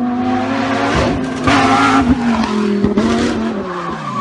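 A sports car's engine running at high revs, with a burst of tyre squeal about a second and a half in; the engine note drops off near the end as the revs fall.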